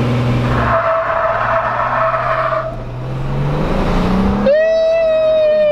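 A car's engine is revved hard while its tires squeal, the tires being spun deliberately. There is a shorter squeal about a second in; then the engine pitch climbs and a long, loud tire squeal sets in near the end, sagging slightly in pitch.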